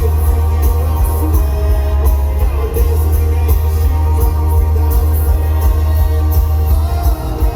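Rock band playing live, loud, with heavy bass and a steady drum beat.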